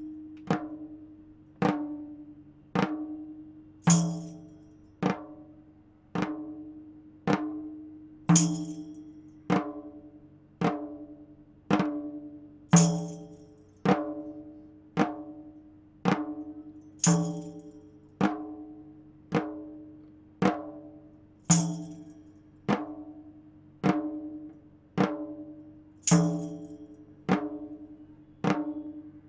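Musical accompaniment: a slow, steady drum beat, one stroke a little over a second apart, each stroke ringing out, over a low held drone. Every fourth beat is accented with a brighter, jingling sound.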